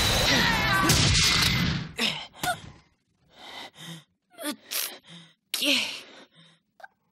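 A dense wash of special-effect noise that cuts off about two seconds in, followed by a string of short gasps and grunts mixed with quick strike sounds from a close-quarters fight between costumed fighters.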